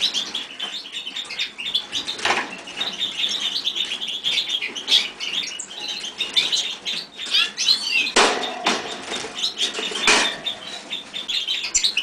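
Cage canary chirping and twittering, with short bursts of wing flapping about two, eight and ten seconds in.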